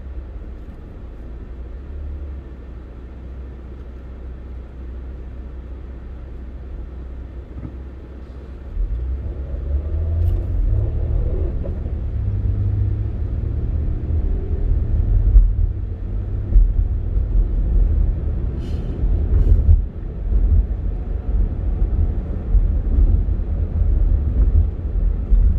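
Car engine and road noise heard from inside the cabin: a low, steady idle while stopped at a traffic light. After about nine seconds it jumps to a louder, uneven rumble as the car pulls away and drives on.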